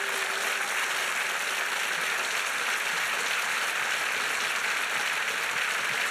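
Studio audience applauding steadily after a dance performance.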